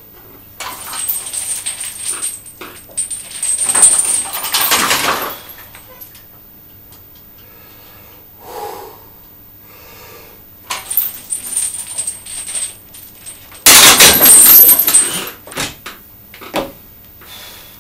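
Metallic jangling and clanking from a loaded barbell and its hanging chains: two bouts of rattling in the first five seconds, more scattered clinks later, and the loudest clatter about fourteen seconds in.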